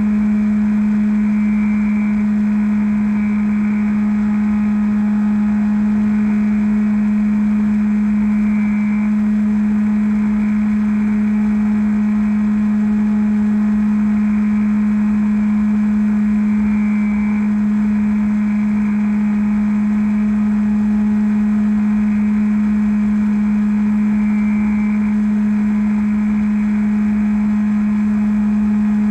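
Bixler RC plane's electric motor and pusher propeller running at a steady cruise, heard through the onboard camera as an unchanging hum.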